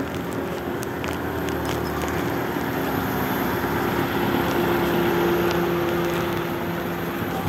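Street traffic noise with a motor vehicle engine running close by. Its steady hum swells about the middle, over a general background hiss.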